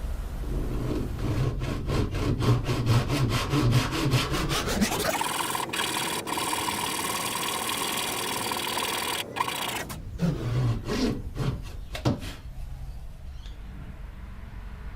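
Hand saw cutting hardwood in quick, even strokes. About five seconds in it gives way to a steady machine whine lasting about four seconds, and a few knocks follow.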